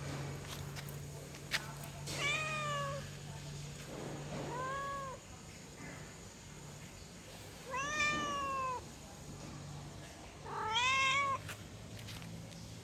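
Domestic cat meowing four times, a few seconds apart. Each call rises and then falls in pitch. These are the calls of a female cat in heat. A steady low hum runs underneath, and there is a single sharp click shortly before the first meow.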